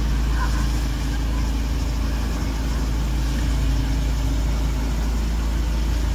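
Eight-wheel amphibious ATV's engine running steadily while it drives through river water, a low drone with a deep rumble underneath.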